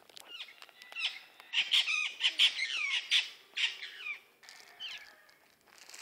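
White-fronted parrots calling: a flurry of short, overlapping sweeping calls, densest in the middle and thinning out after about four seconds.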